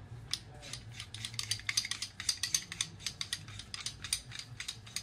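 Rapid light metallic clicking and rattling as the steel bottom sub is fitted and screwed by hand onto the body of an oilfield anti-blowup tool. The clicks come thickest in the middle.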